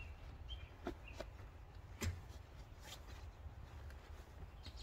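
A few faint knocks and rustles as a bagged folding camp chair is handled and pulled down off a minivan roof rack, the loudest knock about two seconds in, over a low steady rumble.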